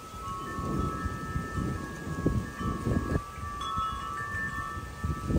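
Metal wind chimes ringing in a breeze, several overlapping bell-like notes sounding and fading. Gusts of wind rumble on the microphone.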